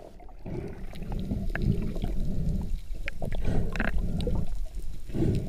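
Underwater sound heard through a GoPro dive housing: a muffled, low, uneven rush of water with scattered bubble pops and small clicks as the camera goes under the surface.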